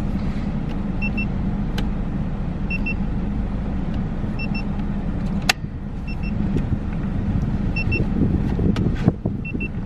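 Cybex car seat base giving a double electronic beep about every second and a half, its warning that one of its installation checks is not yet showing green. A steady low hum runs underneath, with a sharp click about halfway through and another near the end.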